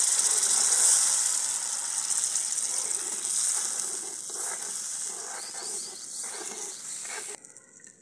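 Water poured into hot fried masala and oil in a kadhai, sizzling and hissing loudest at first and dying down over several seconds as the gravy cools, with a few ladle strokes in the pan; the sound cuts off suddenly near the end.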